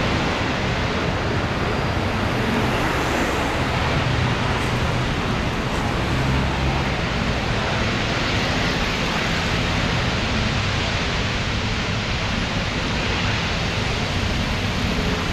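Natural gas escaping from a gas line ruptured by construction work: a steady, loud rushing noise that holds even throughout.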